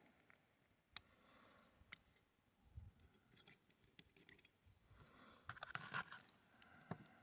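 Faint clicks and scraping from handling a Colt Paterson black powder revolver while loading its cylinder chamber by chamber: a sharp click about a second in, another a second later, a rustling scrape near six seconds and a last click near the end.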